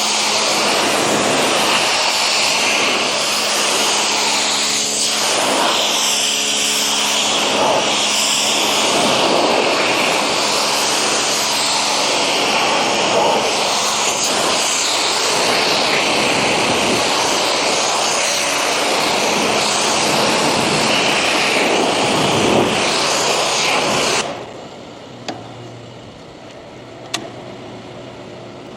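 Pressure washer spraying a high-pressure water jet onto a conveyor belt: a loud steady hiss over the hum of the washer's motor and pump. The spray cuts off suddenly near the end, leaving a quieter low hum and a couple of sharp clicks.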